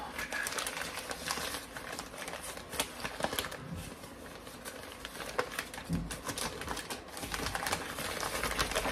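Newspaper gift wrapping crinkling and tearing as a package is unwrapped by hand, a dense run of crackles and rips.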